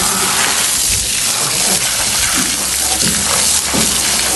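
Water running and splashing as a steady loud hiss, with a low steady hum joining about a second in.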